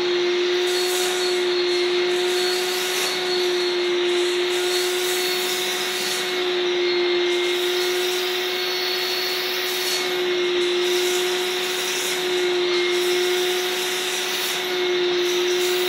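Vacuum cleaner running steadily with a constant motor whine, its suction hissing through a wide upholstery tool drawn over curtain fabric. The upper hiss swells and fades every second or two.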